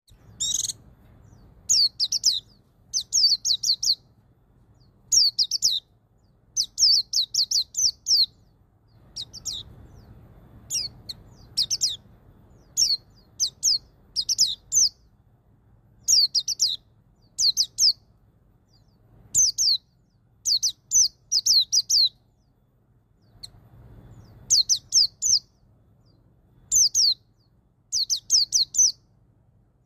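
A white-eye (pleci) singing its full 'ngalas' song in the standard five-beat pattern: quick groups of about three to six high, falling notes, repeated every second or so with short pauses between.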